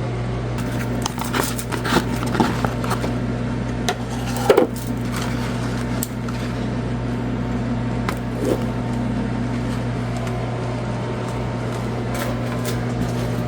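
Scattered clicks and knocks of hard plastic parts being handled on a vacuum cleaner that won't turn on, over a steady low hum.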